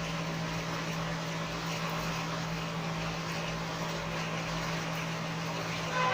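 Steady background hum: a constant low drone over an even hiss, with no distinct clicks or knocks.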